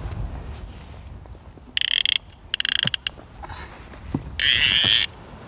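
Spinning reel's drag ratcheting as a hooked catfish pulls line off against it, in three short bursts: about two seconds in, just before three seconds (a fast run of clicks), and a longer, loudest one around four and a half seconds.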